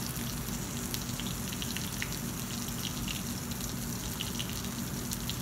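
Steady frying sizzle with scattered small crackles, over a constant low hum.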